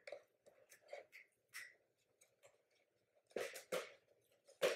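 Cardboard mailer box being sealed by hand: faint rustling and light taps, then a few louder short crackles about three and a half seconds in and again near the end as the backing strip is peeled off the adhesive and the flap is folded down.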